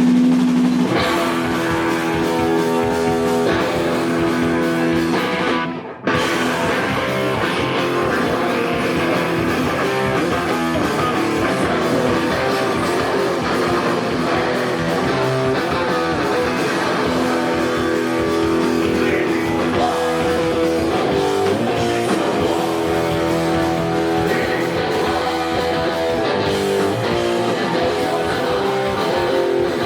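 Live rock band playing with electric guitars, bass and drum kit. A held guitar chord rings at the start, then the full band comes in, and there is a short, sudden break about six seconds in before the band crashes back in.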